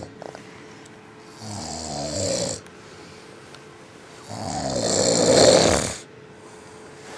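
A young child imitating a man's snoring: two long, rasping snores, the second louder and longer.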